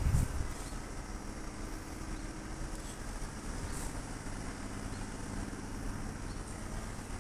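Steady low background rumble, with a short low thump right at the start.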